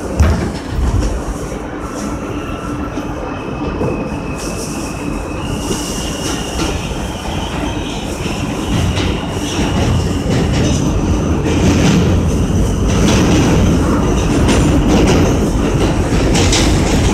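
R160 subway train pulling out and accelerating into a tunnel. Its propulsion whine steps up in pitch over steady wheel rumble and clacking rail joints, and the running gets louder as it gathers speed. There is a thump right at the start.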